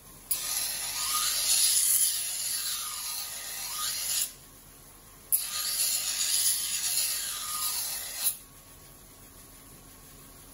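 An Edo-style usuba knife's bevel is ground against a rotating wheel whetstone in two long hissing passes, each a few seconds long with faint rising and falling tones. Each pass stops abruptly. This is the final pass to even out the whole bevel.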